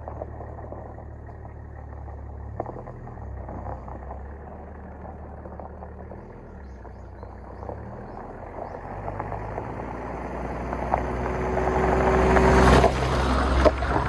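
A car engine running, its low hum growing louder over several seconds and dropping off suddenly about thirteen seconds in.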